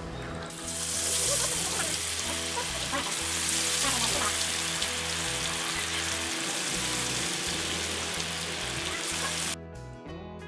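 Hot oil in an iron kadai sizzling loudly as masala-coated pieces are dropped in and deep-fried. It starts about half a second in and cuts off suddenly near the end, leaving background music.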